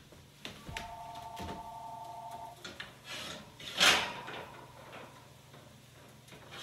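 An oven being opened and a stoneware baking pan slid out, with a loud scraping rush about four seconds in and small knocks around it. A steady two-note hum sounds for about two seconds near the start.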